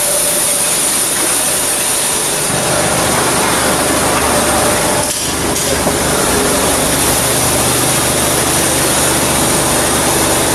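Steady heavy machinery noise with a constant high hiss. A deeper low drone joins about two and a half seconds in and then holds steady.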